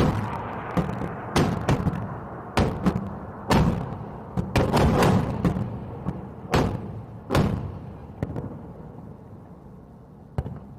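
A rapid series of about a dozen booming explosions, each with a rolling rumble and echo, coming thick in the first seven seconds, then thinning out, with one last sharp blast near the end.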